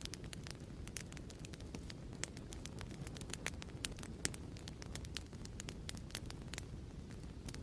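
Wood fire crackling steadily in a fireplace: a low rumble of flame under irregular sharp pops and snaps.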